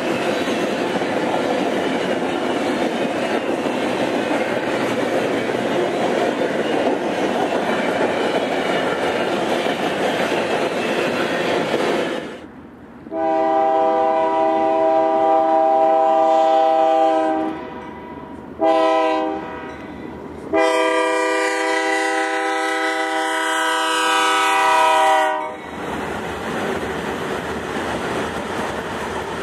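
A double-stack container freight train rolling past with a steady rumble. After a cut about twelve seconds in, a BNSF diesel freight locomotive's air horn sounds three blasts, long, short, long, as the train approaches, and its rumble follows near the end.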